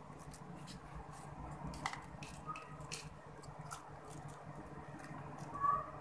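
Faint, scattered light ticks and crackles of crushed almonds being picked from a glass bowl and sprinkled by hand into a buttered cake tin, over a low steady hum.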